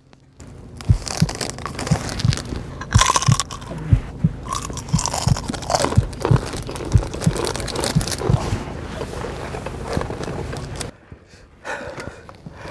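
Close-up crunching and chewing of the One Chip Challenge chip, a very hot tortilla chip: irregular bites and crunches for about ten seconds, dying down near the end.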